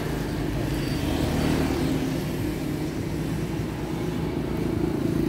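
Small motorbike engines running steadily as motorbikes ride past on the road, over general road noise.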